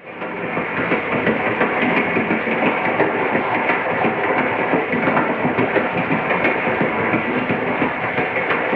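A moving train: steady running noise of the wheels and rail cars, thick with small rattling clicks. It fades in over the first half second, then holds steady.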